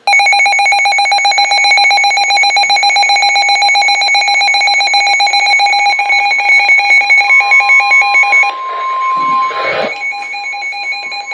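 NOAA Weather Radio alert tone sounding as a harsh, rapidly pulsing buzz at a steady pitch. A clean steady tone near 1 kHz, the 1050 Hz warning alarm, joins about seven seconds in. The garbled tone is the sign of a Broadcast Message Handler failure at the transmitter.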